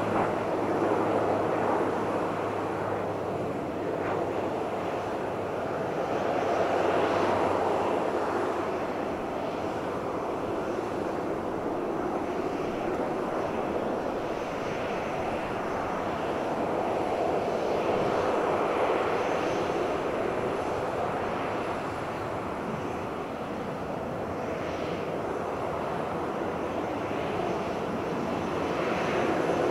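Boeing 737-800's CFM56 turbofan engines running at low thrust as the jet taxis, a steady jet hum that swells and eases a few times.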